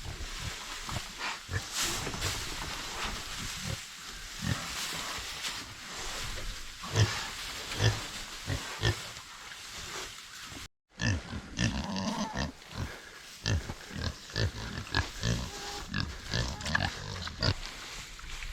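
Pigs grunting while they root and shuffle in fresh hay bedding, with irregular rustling and crunching of the hay throughout. The sound cuts out for a moment a little past halfway.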